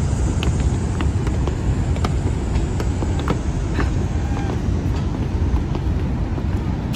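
Steady low roar of the Horseshoe Falls, with wind rumbling on the microphone and a few faint short chirps above it.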